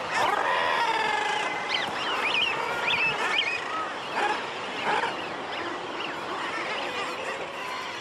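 A common guillemot breeding colony calling: many birds' harsh, wavering calls overlapping in a continuous din, with some higher, thinner calls standing out about two to three seconds in.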